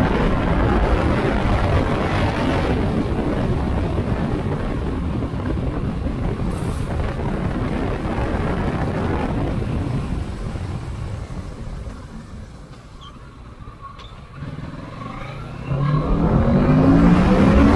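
Kawasaki Ninja 650's parallel-twin engine under way on the road, over a steady rush of wind and road noise. The sound drops away for a few seconds near the middle, then about three-quarters of the way in the engine revs up with a rising pitch as the bike accelerates.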